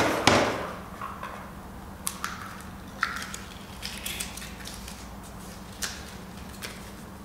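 Plastic draw balls clattering against a glass bowl right at the start, then scattered small clicks and paper rustles as a draw ball is opened and a folded slip of paper taken out and unfolded. A faint steady hum runs underneath.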